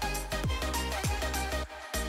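Electronic background music with a steady kick-drum beat, dropping out for a moment near the end.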